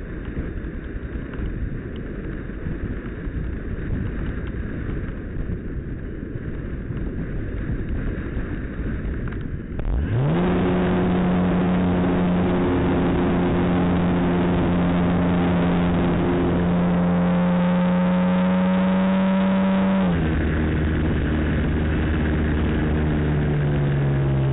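Rushing airflow over the Easy Glider Pro RC motor glider while it glides unpowered. About ten seconds in, its electric motor and propeller spin up sharply to a steady whine. The pitch steps down partway through and starts to wind down near the end.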